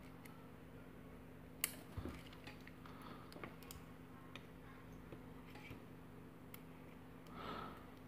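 Faint, scattered metal clicks and ticks from a small screwdriver working inside a metal padlock body to free a spring, the sharpest about one and a half and two seconds in.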